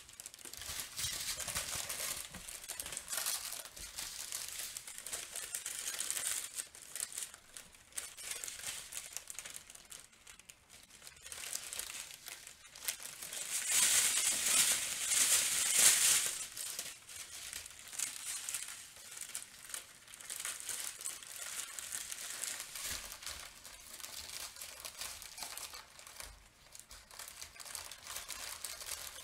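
Thin plastic packaging crinkling as the wrapped diamond-painting canvas and bags of drills are handled and shifted around. It is irregular and goes on throughout, with a louder, busier stretch about halfway through.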